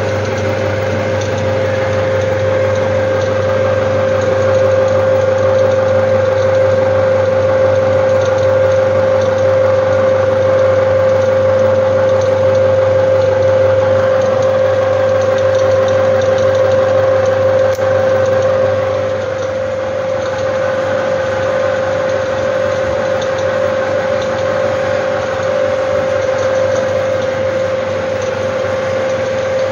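Strong Simplex Millennium 35mm film projector running: a steady mechanical whir with a strong held tone over a low hum. It drops a little in level about two-thirds of the way through.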